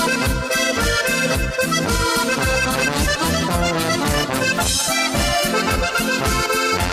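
Upbeat accordion music over a steady bass beat of about four thumps a second.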